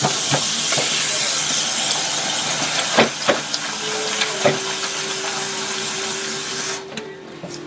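Kitchen tap running water into a bowl of cut potatoes, turned on all at once and shut off after about seven seconds, with a few knocks partway through.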